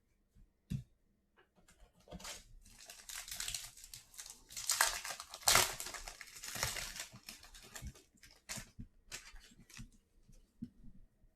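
A 2022 Panini Legacy Football hobby pack wrapper being torn open and crinkled, from about two seconds in until about eight seconds, loudest near the middle. A few short taps from cards being handled come before and after it.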